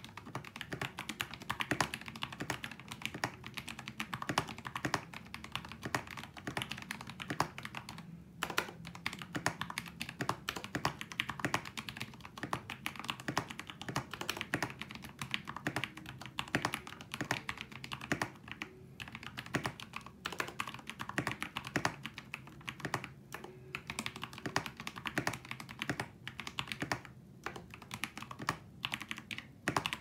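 Fast, continuous typing on a Royal Kludge RK G68 65% mechanical keyboard with stock RK Brown tactile switches lubed with Krytox 205g0, PBT keycaps and a foam-filled, tape-modded case: a rapid, unbroken run of key strokes that pauses briefly a few times.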